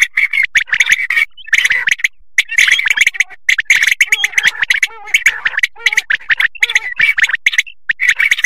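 Common quail calling in a fast, dense run of sharp repeated notes, with two short breaks early on. This is a recorded quail call played as a hunting lure to draw in migrating quail.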